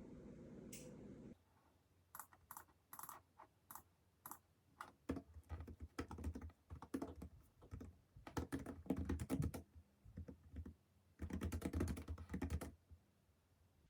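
Typing on a computer keyboard: irregular bursts of quick key clicks, some in fast runs, after a low steady hum cuts off a little over a second in.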